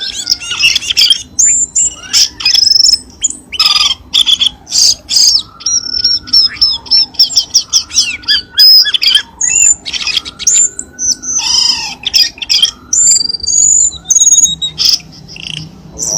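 Cucak keling birds calling in a dense, overlapping stream of rapid chirps, whistled notes and harsh squawks, with slower arching lower whistles under them. It is a lure call meant to set caged birds singing.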